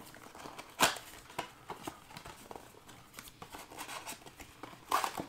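Plastic trading-card pack wrapper crinkling in the hands as it is handled and torn, with a sharp crackle about a second in and another cluster of crackles near the end.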